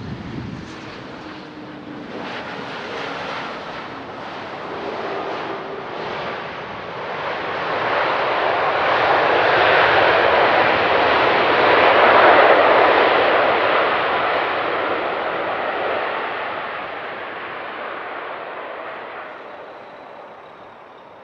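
Boeing 737 MAX's CFM LEAP-1B jet engines roaring on the landing rollout. The roar swells to a peak about ten to twelve seconds in, then fades as the jet slows and moves away.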